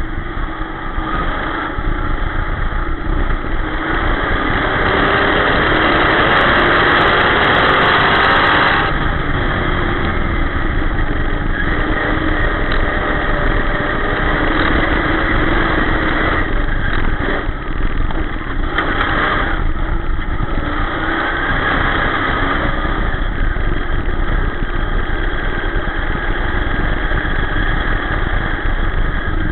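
Dirt-track sportsman race car's V8 engine running hard at racing speed, heard from inside the cockpit. The engine gets louder with rising revs about four to nine seconds in. Around the middle its note dips briefly a few times as the throttle is lifted and reapplied.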